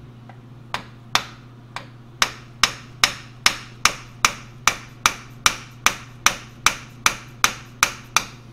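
Hammer striking a pin spanner hooked on the Victor 1660 lathe's spindle bearing adjusting nut: about twenty sharp metallic blows at a steady two or three a second, each ringing briefly. The nut is being tightened to take up play in the tapered roller spindle bearings that was causing chatter.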